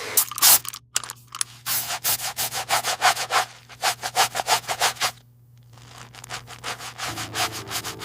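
Brush scrubbing leather upholstery in quick back-and-forth strokes, about four to five a second. The scrubbing stops briefly around the middle, then resumes more softly.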